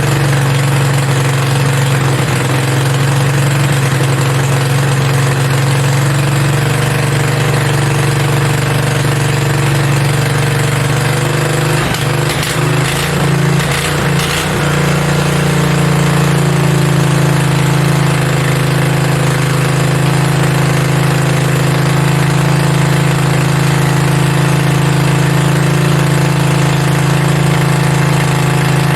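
Generator-type V-twin engine on a mini bike running unloaded at a steady fast idle, with the drive belt off and no throttle linkage; it idles too high. Brief clatter about halfway through, after which it settles at a slightly higher, steady speed.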